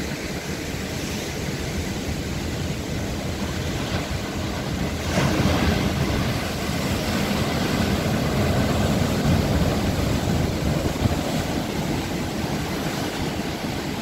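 Heavy surf surging into a narrow inlet of lava rock, the sea churning and breaking into white foam. A bigger surge comes in about five seconds in.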